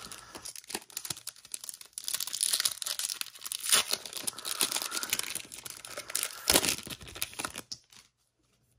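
A trading-card pack wrapper being torn open and crinkled in the hands: a dense crackling rustle with one sharp loud crack, stopping shortly before the end.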